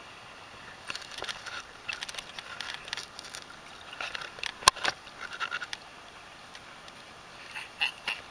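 Seawater splashing and lapping against a camera held at the water's surface, with irregular crackles and patters of droplets and a hiss of wavelets. A sharp click stands out a little under five seconds in.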